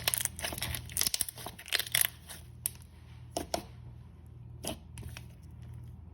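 Packaging being torn open and crinkled by hand in quick, irregular rips and rustles. They come thickest in the first couple of seconds and thin out to scattered crackles.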